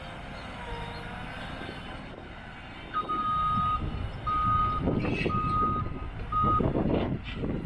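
A CAT 316EL excavator's travel alarm sounds four beeps of one steady tone, starting about three seconds in. Under the beeps is the machine running, and its rumble grows louder and rougher as the alarm starts, with clanking near the end.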